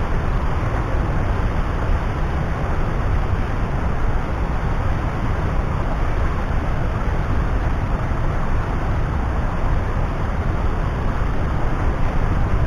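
Waterfall on a river: loud, steady rushing of water pouring over rocks, heaviest in the low rumble.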